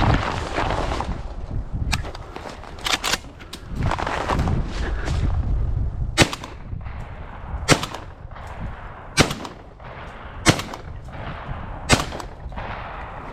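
A string of gunshots: a few smaller cracks, then five sharp shots in an even rhythm, about a second and a half apart, in the second half.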